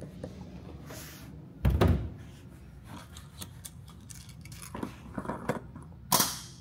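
A plastic gas can set down on concrete with a heavy thud about two seconds in, followed by light clicks and rattles of handling around the generator's filler and a short sharp scrape near the end.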